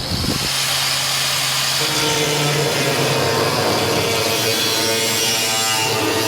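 Angle grinder running steadily against steel, a continuous hissing grind with a faint motor whine under it.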